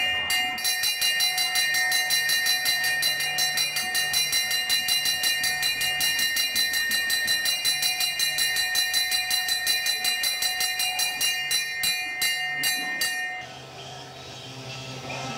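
Electric bell ringing continuously with a rapid, even rattle of strikes, cutting off abruptly about 13 seconds in; it is the bell for the end of the exam.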